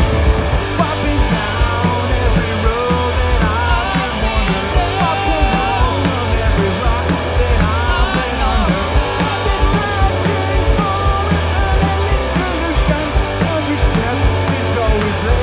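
Punk rock band playing live: electric guitars, bass guitar and drum kit, loud and steady throughout.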